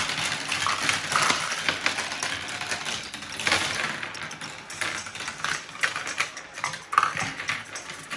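Many glass marbles rattling and clicking down a plastic Marble Genius marble run, a dense clatter at first that thins out and gets quieter toward the end as fewer marbles are still rolling.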